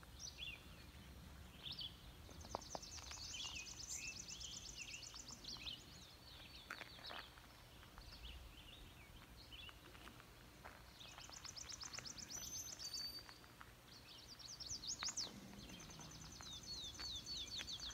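Faint songbird chorus: several high, fast trills of rapidly repeated notes, each lasting a second or two, among scattered short chirps.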